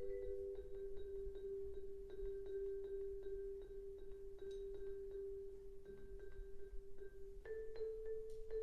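Classroom xylophones playing a tremolo: fast repeated mallet strikes holding one low note, changing to a slightly higher note about seven seconds in.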